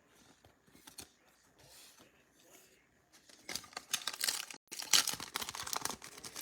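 A trading-card pack's wrapper being torn open and crinkled, loud crackling tearing that starts about halfway through after a few faint clicks of card handling.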